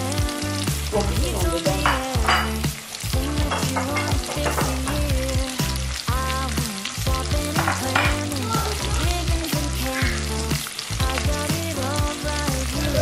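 A background song with singing and a steady stepping bass line, over a sizzling, frying hiss. A few short knocks sound through it.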